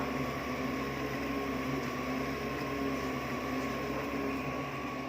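Homemade 3D printer running mid-print, a steady mechanical hum with a thin whine.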